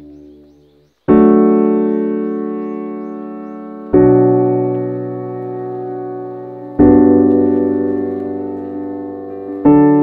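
Background music of slow piano chords. The first chord is struck about a second in and each one rings and fades before the next, about every three seconds, four in all.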